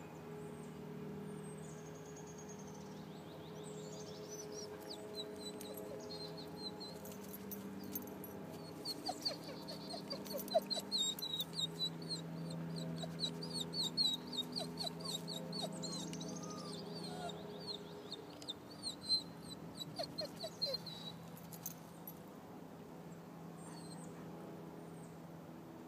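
Wild birds chirping and calling in quick runs of high notes, busiest in the middle, with a few short lower calls among them, over a steady low hum.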